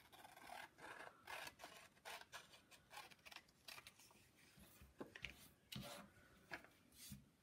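Scissors snipping through a page of an old atlas map: a faint run of short cuts, about two or three a second, with a short pause about four seconds in.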